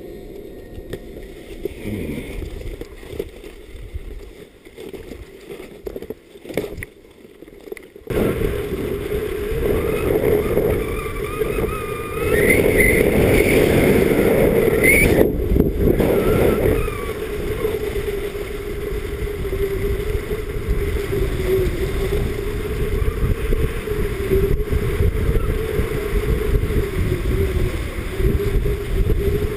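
Wind rushing over an action camera's microphone and skis running over snow during a downhill ski run, a steady rumbling noise. It is quieter at first and jumps abruptly louder about eight seconds in.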